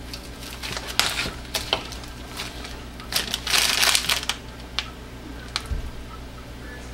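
Plastic zipper bag used as a piping bag crinkling in the hands as whipped soap frosting is squeezed out through the tip, in irregular bursts, the longest about three seconds in, followed by a few sharp clicks.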